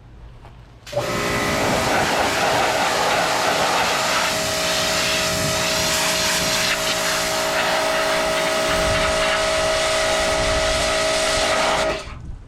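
Pressure washer running and spraying: a loud, steady hiss of water with a steady motor whine under it, starting about a second in and cutting off shortly before the end.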